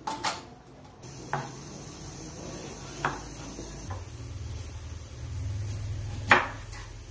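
Kitchen work sounds: a steel pot clinks at the start, a couple of scattered light knocks follow, and near the end a knife strikes a wooden cutting board once, sharply and loudly, while cutting vegetables. A low steady hum runs under the second half.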